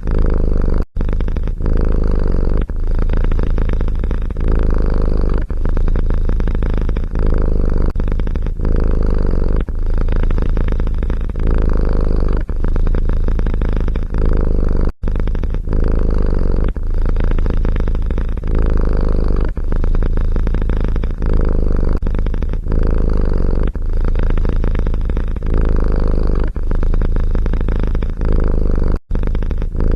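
A cat purring loudly close to the microphone. The purr swells and eases in a steady rhythm about every second and a half with each breath. It breaks off for an instant three times.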